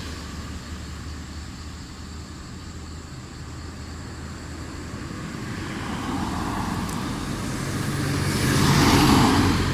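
Cars passing on a street: the tyre and engine noise of one dies away, then another approaches, louder from about five seconds in, and goes by close near the end.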